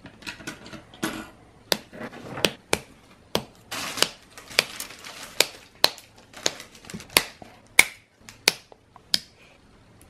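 Plastic Gunpla kit parts being handled and cut from their runners with side-cutter nippers: a string of about a dozen sharp plastic clicks and snips, with rustling of the plastic runners in between.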